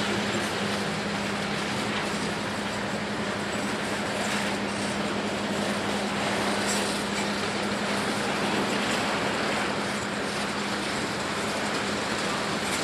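Freight train of enclosed autorack cars rolling past, a steady rumble of steel wheels on the rails with a steady low hum.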